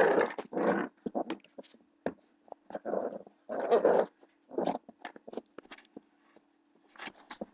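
Blue pit bull puppy growling in short, rough bursts while play-fighting, with quick scuffling clicks between them. A faint steady hum runs underneath.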